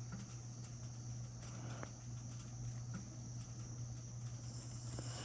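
Faint scattered clicks and taps of small spinning-reel parts being handled as a nut is threaded on, over a steady low hum.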